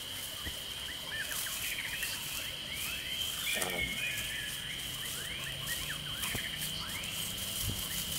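Jungle-style nature ambience: a steady high insect drone under many short, repeated chirping calls, with one lower animal call about three and a half seconds in.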